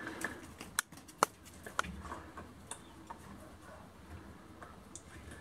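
A few sharp, scattered clicks and taps, irregularly spaced, over a faint background.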